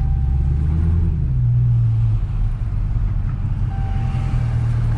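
Dodge Hellcat's supercharged 6.2-litre HEMI V8 rumbling steadily as the car drives, with a faint steady whine that comes and goes; no suspension clinking is heard, the noise now gone after the alignment work.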